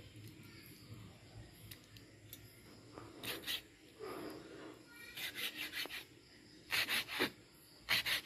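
Kitchen knife sawing through raw fish fillet against a plastic cutting board, in short runs of quick scraping strokes with pauses between them.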